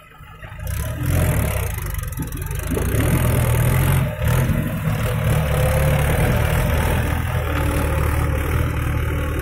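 Mahindra 575 DI tractor's diesel engine running under load as it pulls a loaded trolley past close by. The sound swells about a second in, then holds steady.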